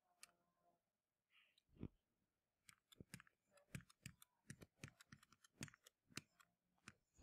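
Faint clicks and taps of a stylus writing on a tablet screen: a few scattered at first, then coming several a second from about three seconds in.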